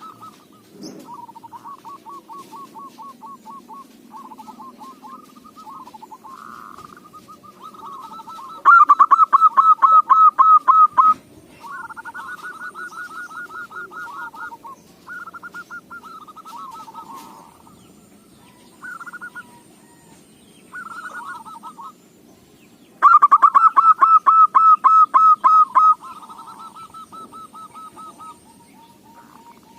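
Zebra dove (perkutut) cooing: trains of quick, evenly pulsed coos, with two much louder runs of calling about nine seconds in and again about three-quarters of the way through.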